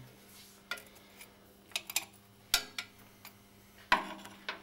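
Irregular metal clicks and taps from a hand tool working the gearbox sump plug of a Moto Guzzi Centauro loose, about eight in all, the loudest near the middle and shortly before the end.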